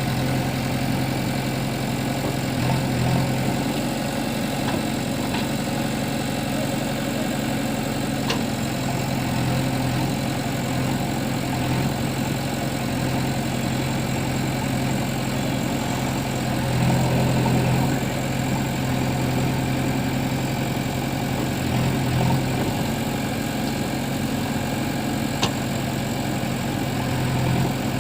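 JCB 3DX backhoe loader's diesel engine running steadily, swelling briefly a few times, with a single sharp tap near the end.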